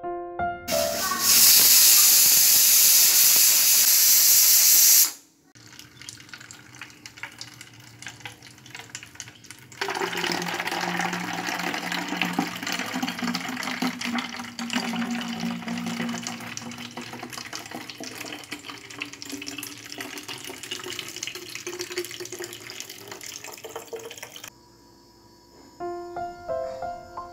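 Water from a tap running hard, then pouring into a plastic bottle, with a tone that rises slowly as the bottle fills. Soft piano music briefly at the start and again near the end.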